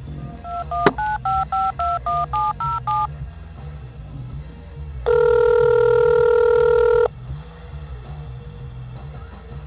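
Phone keypad dialing a number: about ten quick touch-tone beeps, each a pair of tones, with a sharp click among them. About two seconds later comes a steady two-second ringback tone, the signal that the called line is ringing.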